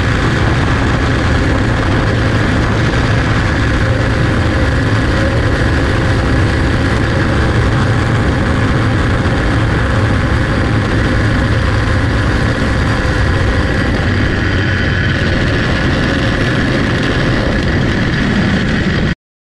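Quarter-midget race cars' small clone engines running flat out at a steady pitch, heard from onboard the car. The sound cuts off suddenly at the very end.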